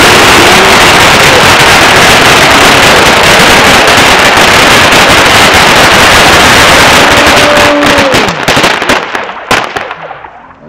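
Ground fountain firework spraying sparks with a loud, steady hiss thick with crackling; about eight seconds in it dies down to scattered crackles and pops and fades out.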